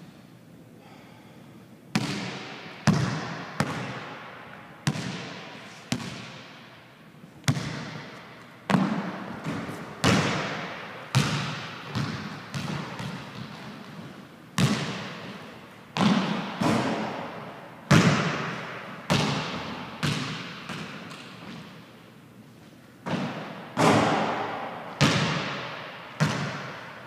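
Basketball bouncing on a hardwood gym floor: a string of sharp thuds, roughly one a second at uneven spacing, beginning about two seconds in, each followed by a long echo in the bare hall.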